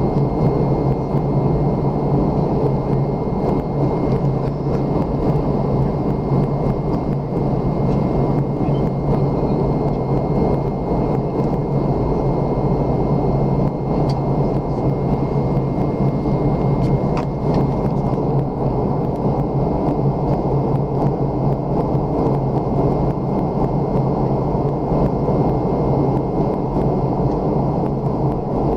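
Airliner cabin noise in flight: the steady low rush of the engines and the airflow over the fuselage, with a faint steady high whine above it.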